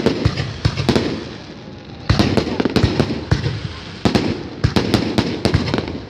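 Aerial fireworks display: a rapid series of bangs from shells bursting overhead, with crackling between them. Louder volleys go off about two and four seconds in.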